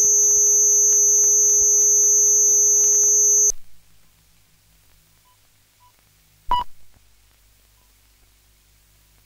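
Loud, steady test tone on a 35mm film's soundtrack, a low hum with high whistling tones above it, cutting off abruptly about three and a half seconds in. Then only a faint hum, broken about three seconds later by a single short beep, typical of the sync pop in a film leader.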